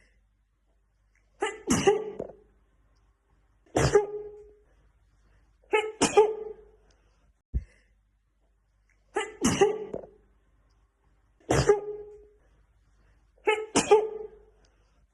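A woman sneezing over and over in a fit, about six loud sneezes roughly two seconds apart.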